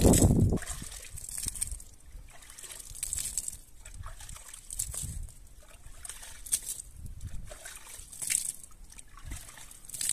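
Hands being rinsed with water: a louder splash of water onto the ground at the start, then scattered small splashes and drips as the hands are rubbed together and shaken off.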